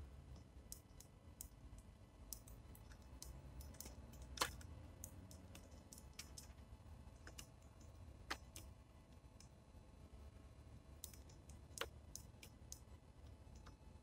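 Faint, irregular clicks and taps of a Eurasian tree sparrow and a great tit pecking at seed on a wooden tray feeder, with sharper knocks about four, eight and twelve seconds in, over a faint low rumble.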